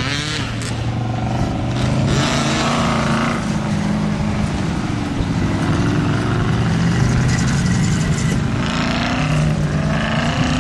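Engines of a six-wheeled army truck and a line of 4x4 off-road vehicles driving past on a dirt track, running loudly with the pitch rising and falling as they speed up and slow down.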